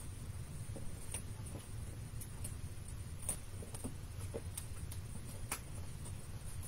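Light rustling and a scattering of small taps and clicks from die-cut paper cutouts being handled and pressed into place with foam dots, over a steady low hum.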